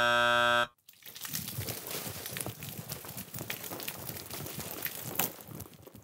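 A loud buzzer sound effect for about a second, then a wet splattering and crackling as baked beans are dumped from a bucket onto a man's head and drip off him, fading near the end.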